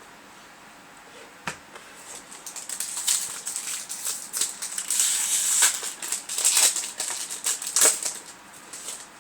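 Foil Yu-Gi-Oh booster pack crinkling and tearing open, with cards being handled. Rustling and crackling, with one sharp snap about a second and a half in; it is busiest in the second half and dies down near the end.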